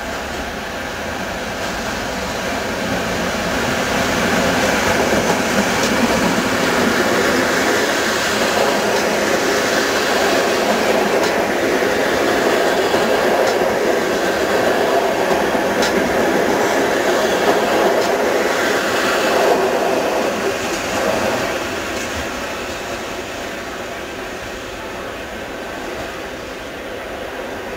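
Electric-locomotive-hauled passenger train passing close by, its wheels running on the rails. The rumble builds over the first few seconds, stays loud with light clicks as the coaches go by, and fades from about twenty seconds in as the train draws away.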